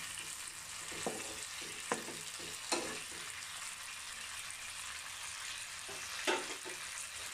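Chicken, onion and tomato sizzling steadily in sauce in a hot pan while a perforated steel spatula stirs them, knocking against the pan four times.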